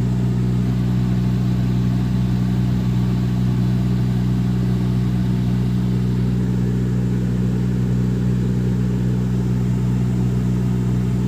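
Steady low hum inside a Renault Triber's cabin with the AC blower fan running and the engine idling. It carries the blower noise that the service centre traced to debris caught in the blower, which needed cleaning.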